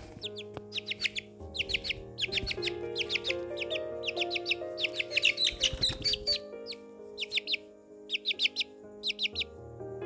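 Small birds chirping in quick runs of short, high chirps, over background music of slow, sustained notes.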